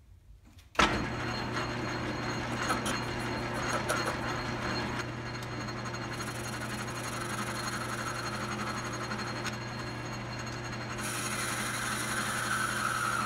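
Logan 10-inch metal lathe switched on about a second in, then running steadily with its motor and drive humming while a lathe tool cuts the end of a spinning metal blank; the cutting noise grows a little louder near the end.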